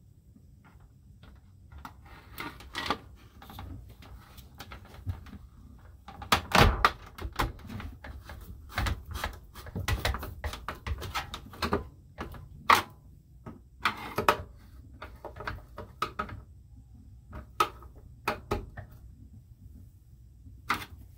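Hand screwdriver and screws being worked into an RV roof vent fan's plastic housing and trim: an irregular run of clicks, knocks and scrapes, the loudest knocks about a third of the way in and again a little past halfway.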